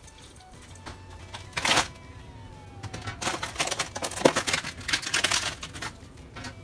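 Kitchen handling clatter: a wire mesh rack is set down on a plastic cutting board with a sharp clatter, then a plastic food container rattles and clicks as it is handled and its lid opened, in a quick run of knocks.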